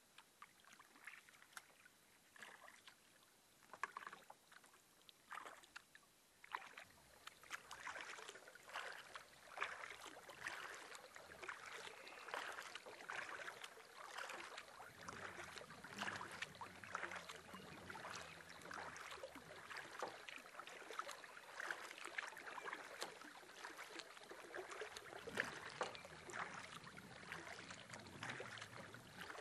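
Paddle strokes splashing and water sloshing along the hull of a solo canoe under way. The splashes are sparse at first and become continuous from about seven seconds in.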